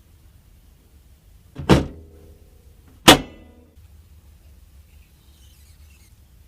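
Two sharp knocks about a second and a half apart, each with a short ringing tail; the second is slightly the louder.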